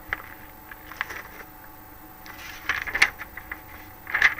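Light handling noise: a few scattered clicks and taps with soft rustling, gathering into a short run of taps about three seconds in and again near the end.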